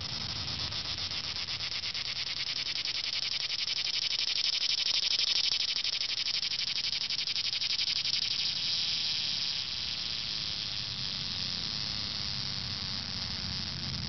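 Cicada singing close up: a loud, unbroken buzz made of very rapid pulses, swelling to its loudest around the middle.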